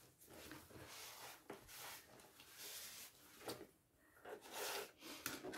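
Faint rustling and rubbing of paper being handled and pressed down on a craft table, with a couple of light clicks.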